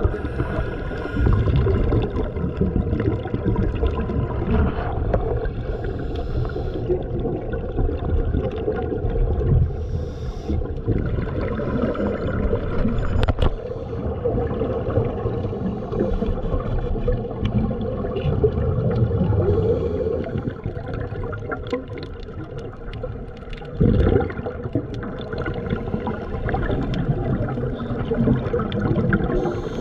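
Water gurgling and sloshing with a steady low rumble, muffled, with a few brief louder surges.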